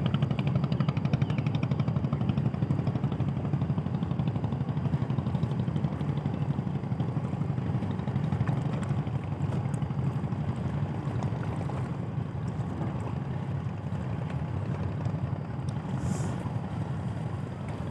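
Passenger ship Kelud's engines running with a steady low throb as it pulls away from the quay, slowly fading.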